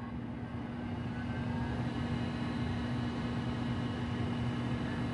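MFM hard drive spinning up just after power-on: a steady hum with a faint whine rising slowly in pitch over the first few seconds.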